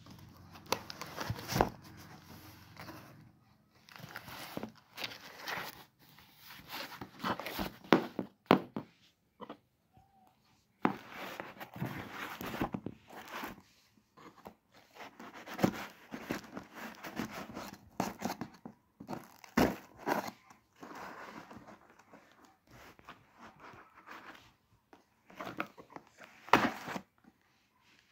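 Clear plastic packing tape being cut with a blade and peeled off a cardboard parcel: scraping, crinkling and tearing in irregular bursts.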